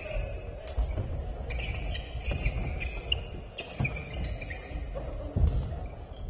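Badminton doubles rally on an indoor court. Rackets strike the shuttlecock in several sharp hits, shoes squeak in short high chirps, and feet thud on the court floor.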